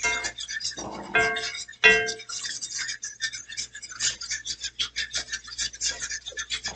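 A fork whisking and scraping a thick beer roux around a skillet, with rapid scraping and tapping and a few ringing clinks of metal on the pan near the start, about a second in and about two seconds in.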